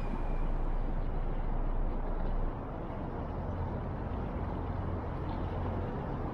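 Yamaha SRX motorboat underway: steady engine and water noise with a low rumble, dropping slightly in level about two and a half seconds in.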